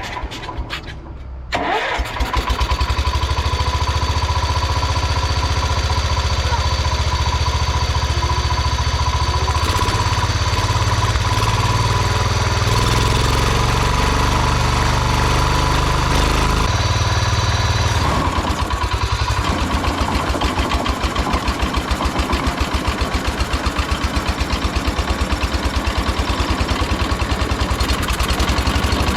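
The Kohler engine of a 1971 John Deere 140 H1 riding mower catches about two seconds in after brief cranking, then runs steadily, its note shifting a couple of times. It is running with the air filter removed: the clogged, gummy filter had been starving it of air.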